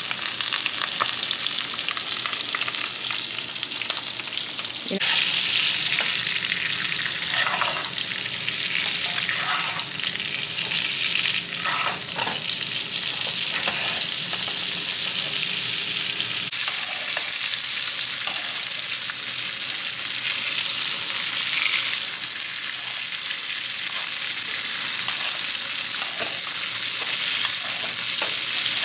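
Ribeye steak frying in a skillet of melted butter and garlic, a steady loud sizzle. It gets louder in two sudden steps, about five seconds in and again a little past halfway, with a few light clicks in between.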